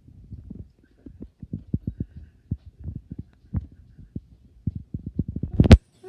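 Someone gulping down juice in quick swallows: low, soft thumps several times a second. Near the end there is one sharp, louder knock.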